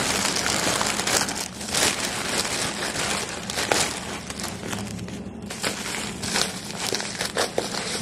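Plastic shopping bags crinkling and rustling in irregular bursts as purchases are pulled out by hand.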